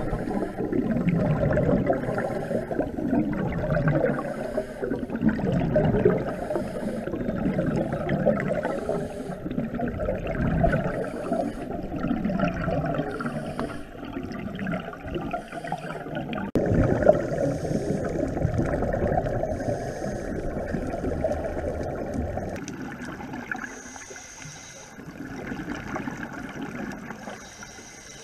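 Scuba breathing heard underwater: regulator hiss and gurgling exhaled bubbles in a rough, repeating rhythm of breaths. It drops and thins about three quarters of the way through.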